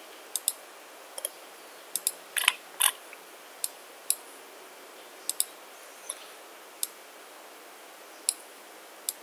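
Computer mouse clicking: about a dozen short, sharp clicks at irregular intervals, several of them in quick pairs like double-clicks, over a faint steady hiss.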